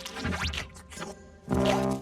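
Cartoon soundtrack music with short comic scratching or fluttering effects, then a loud held note about one and a half seconds in.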